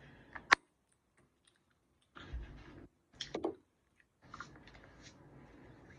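Close handling noises from hands working with skincare containers: one sharp click about half a second in, then stretches of scraping and rustling with a few small clicks.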